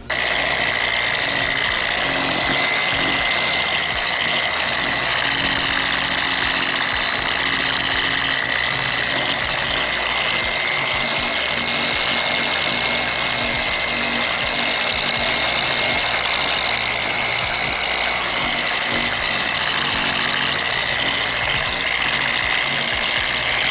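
Dual-action (DA) sander running steadily with a high whine as it scuffs the painted gas tank of a Suzuki Hayabusa with 320-grit paper, dulling the paint so primer will stick. It starts suddenly at the outset.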